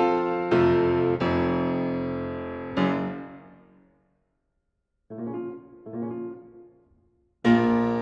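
Background piano music: ringing chords that die away into about a second of silence around the middle, then softer chords, and a loud chord again near the end.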